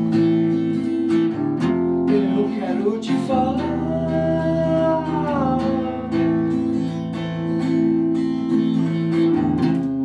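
Acoustic guitar strummed steadily, with a man singing over it; around the middle he holds one long sung note that rises and falls.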